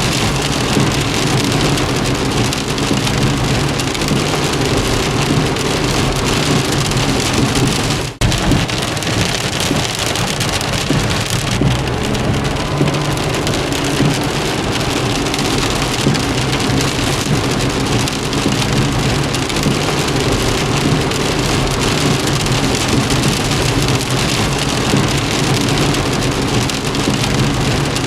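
Steady, heavy rain falling on a car, a dense even patter with a steady low hum underneath. About eight seconds in the sound drops out for an instant.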